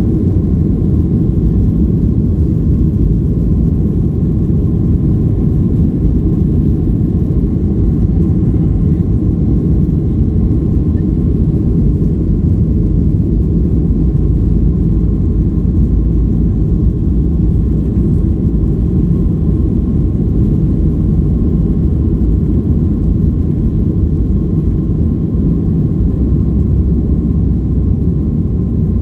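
Boeing 737-800 cabin noise from its CFM56-7B turbofan engines and the airflow: a loud, steady, deep rumble with a faint steady whine above it.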